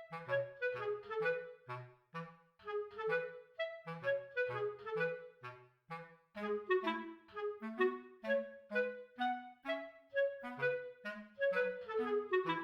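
Background music: a lively melody of quick, short notes over a bouncing bass line.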